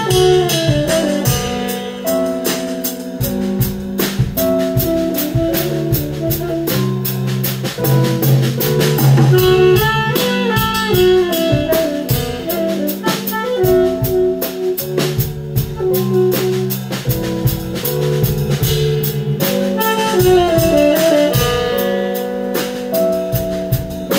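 Small jazz group playing live: a saxophone plays running melodic lines over a drum kit with cymbals and a Nord Stage 3 keyboard.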